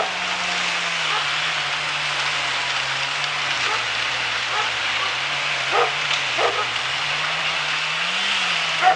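Engine of a firewood-processing machine running steadily, its pitch sagging and recovering slowly as the load changes, with a few short knocks about six seconds in and again near the end.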